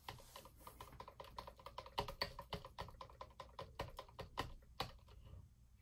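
Stir stick clicking and scraping against the sides of a plastic cup while stirring thick acrylic paint: a quick, uneven run of light ticks, several a second.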